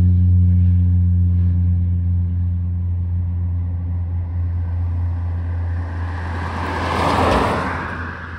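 Cessna 208B Grand Caravan's PT6A turboprop at takeoff power: a steady low propeller drone that slowly fades as the aircraft climbs away. About seven seconds in, a rushing swell rises to a peak and then dies down.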